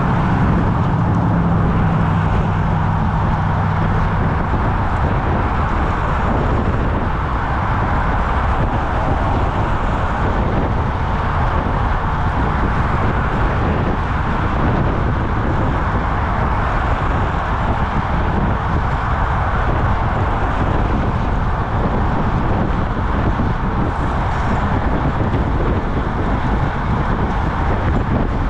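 Steady wind and road rush on the microphone of a camera mounted on a road bike at speed, with cars passing in the next lane. A low engine hum from a passing vehicle is heard for the first few seconds.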